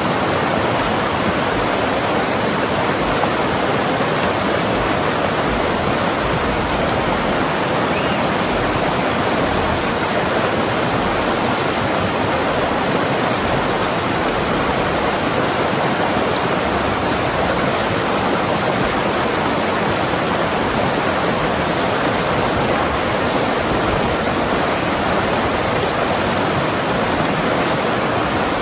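Mountain river rushing and gurgling over rocks: a steady, unbroken rush of water.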